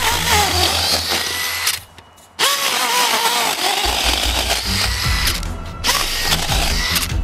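Makita 40V XGT cordless drill driving an auger bit into packed dirt: the motor's pitch wavers under load over a gritty scraping of soil. The drilling comes in bursts, with a short break about two seconds in and another near the end.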